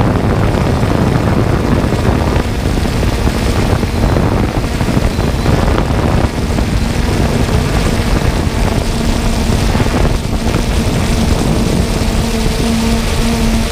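Camera drone's propellers and motors heard from its own onboard camera: a loud, steady rushing noise with a hum whose tone grows stronger near the end.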